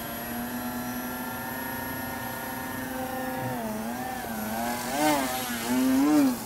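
Yak 55 foam RC airplane's small electric motor and propeller whining at a steady pitch, then rising and falling in pitch several times from about halfway through, loudest in the last second and a half.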